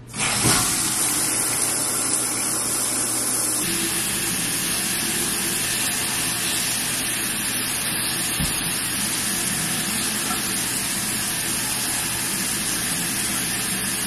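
Shower turned on: water comes on suddenly right at the start and keeps running in a steady, full hiss of spray.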